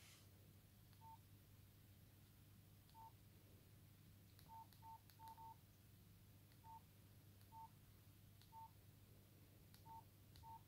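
Nokia 5130 XpressMusic keypad tones: about eleven short, single-pitched beeps at irregular intervals as the keys and navigation pad are pressed through the menus. They are faint, over a steady low hum.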